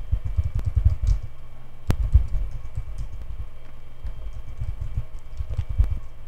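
Typing on a computer keyboard: irregular key clicks with low thuds, and one sharper click about two seconds in.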